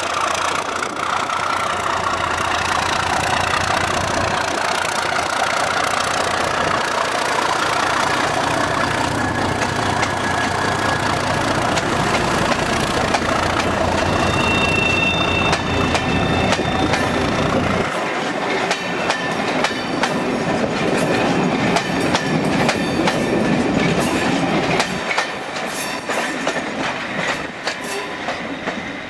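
English Electric Class 37 diesel locomotive's V12 engine running as it hauls coaches past close by. A little over halfway through, the deep engine rumble drops away and the coaches' wheels clatter rhythmically over the rail joints as they roll by, fading slightly near the end.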